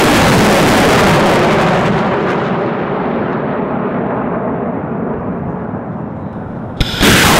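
Rocket motors of 220 mm Uragan multiple-launch rockets, loud just after launch and fading over several seconds as the rockets fly off, the hiss dying away first. Near the end another rocket launches with a sudden loud blast.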